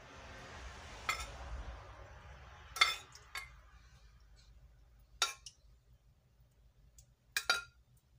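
A metal spoon clinking against a glass baking dish about six times as sugar syrup is spooned over a hot basbousa, with a soft hiss during the first three seconds.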